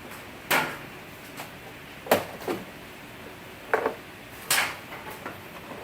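Five sharp knocks and snaps, spaced unevenly, as the interior door trim panel is pushed and struck into place so its clips seat in the door.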